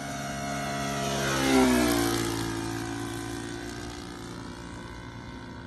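Model airplane's NGH GF38 four-stroke gasoline engine flying past. The engine note grows louder, peaks about a second and a half in with its pitch dropping as the plane passes, then fades as it flies away.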